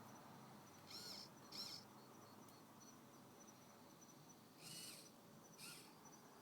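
Faint outdoor ambience: short arched animal calls come in two pairs, over a faint pulsing insect trill.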